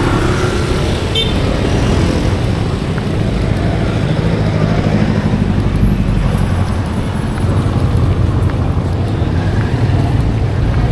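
Steady street traffic: cars and motorcycles running past, with a car's engine passing close about halfway through.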